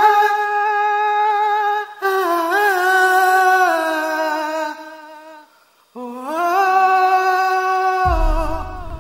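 A woman's voice humming a slow, wordless melody in three long phrases of held, gently sliding notes, part of a soundtrack song. A low rumble comes in near the end.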